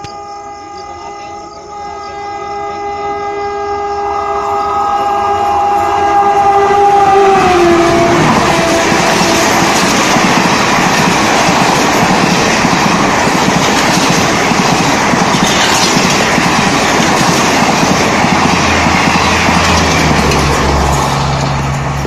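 A WAP-7 electric locomotive's horn sounds one long chord as the express approaches at about 150 km/h, growing louder and dropping in pitch as the locomotive passes, about seven to eight seconds in. Then comes the loud rush and wheel clatter of the coaches speeding past. A low drone comes in near the end.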